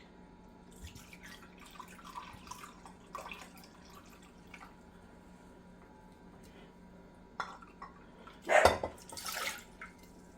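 Liquid being measured out for a vinegar canning brine: faint drips and small clinks. About eight and a half seconds in comes a louder burst of sound lasting about a second.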